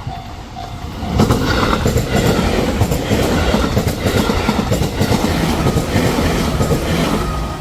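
A train passing close by, its wheels clattering on the track. The sound builds up about a second in and fades near the end.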